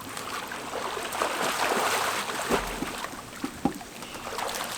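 Water splashing and sloshing in a swimming pool as people move around in it, with a few sharper splashes among the steady churning.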